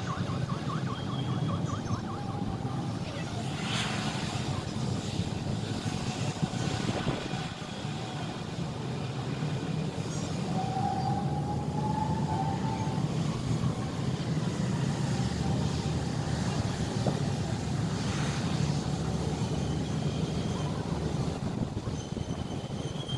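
Airbus A330 jet engines running at low thrust as the airliner taxis, a steady rumble with a faint whine over it, and a short wavering tone about eleven seconds in.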